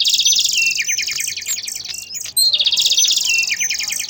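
A songbird singing: a long phrase of fast repeated high notes that steps down in pitch, then a fresh phrase starting about two and a half seconds in.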